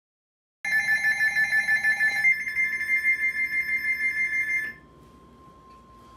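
Emergency Alert System signal on NOAA Weather Radio, sounding for a flash flood warning. A loud, rapidly pulsing electronic data screech starts about half a second in and cuts off after about four seconds. A steady single tone joins partway through and carries on faintly after the screech stops.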